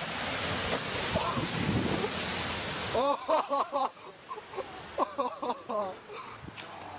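Steady rush of floodwater with wind on the microphone while a small hatchback ploughs through a flooded ford. From about three seconds in, bystanders call out in short excited exclamations over the water.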